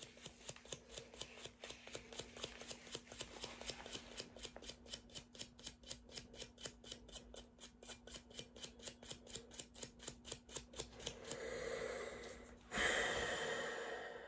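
Nylon-bristle cleaning brush scrubbing a Glock 19 pistol slide in quick, even back-and-forth strokes, about four a second. Near the end the scrubbing stops and a louder rush of noise follows for about a second.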